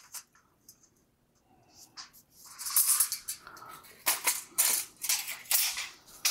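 Thin copper foil crinkling and crackling as it is cranked through a hand-operated rolling mill's grooved rollers and pulled out, with a run of sharp crackles from about two and a half seconds in.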